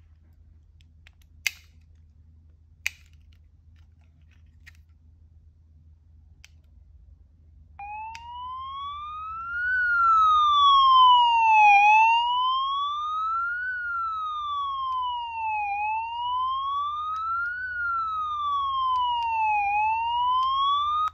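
Retevis RB26 GMRS walkie-talkie's built-in alarm sounding from its speaker: a loud siren-like wail that rises for about two seconds and falls for two, over and over, starting about eight seconds in and cutting off suddenly. Two sharp clicks come before it, near the start.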